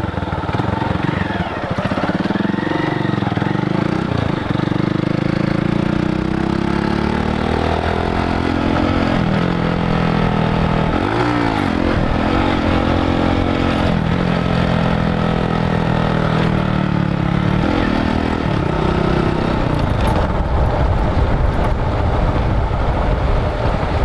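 Motorcycle engine running under way on a dirt track, its note climbing and dropping several times as the throttle opens and closes, over a steady rush of wind noise.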